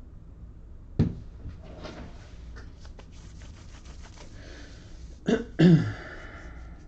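A man coughing: one sharp cough about a second in and two more close together near the end, the last with a falling voiced edge. Light clicks and rustling run between them.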